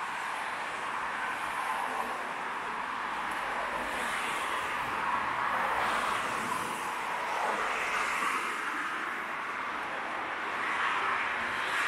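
Steady road traffic: a continuous hiss of tyres and engines that swells as vehicles pass, about halfway through and again near the end.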